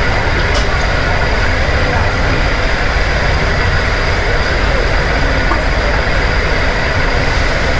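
Steady, loud background din of a small restaurant: a constant low rumble and hiss with a few thin steady tones running through it, unbroken throughout.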